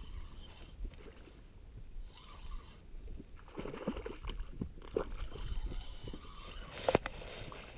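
A hooked pike thrashing and splashing at the surface beside a small boat, against a low wind and water rumble, with one sharp tap near the end.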